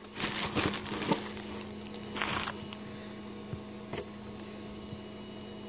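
Paper and packaging rustling and crinkling in bursts for the first two and a half seconds as a parcel is unpacked, then a single light click about four seconds in, over a faint steady hum.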